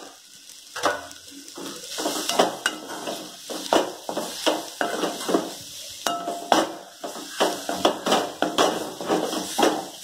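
Slotted metal spatula scraping and knocking against a metal kadai as a thick onion, tomato and coconut masala is stirred, with a light sizzle of the masala frying in oil.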